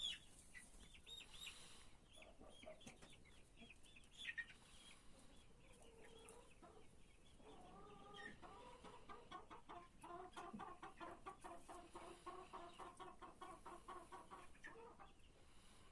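Domestic chickens clucking and calling, faint. A run of short high chirping calls comes first, then from about halfway a long, rapidly pulsing call that stops shortly before the end.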